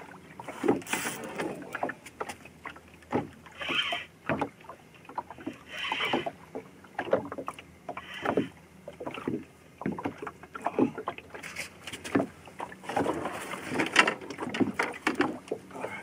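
Irregular knocks and clatter of fishing gear being moved about a small boat's deck, with two short hisses about four and six seconds in, as the angler clears space while playing a hooked fish on rod and reel.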